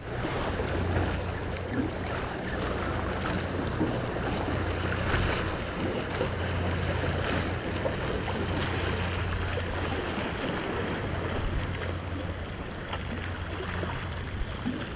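Rain shower over the sea and surf washing on jetty rocks, with wind buffeting the microphone and faint scattered ticks.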